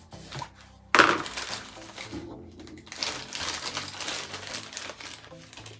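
Paint pot and painting tools being handled: a sharp knock about a second in, then a few seconds of irregular scraping and rustling.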